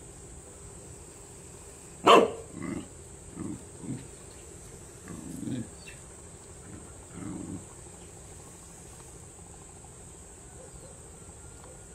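Dog barking: one sharp, loud bark about two seconds in, then five or six shorter, lower barks over the next five seconds.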